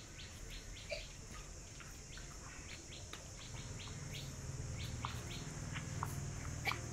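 Small birds chirping in many short, quick calls over a steady high insect buzz. A low hum swells in about halfway through.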